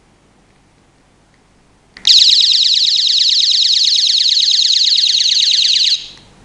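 Arregui AL002 personal alarm, a pocket siren rated at 120 dB, sounding a loud, shrill, rapidly warbling electronic siren. It starts about two seconds in and cuts off after about four seconds.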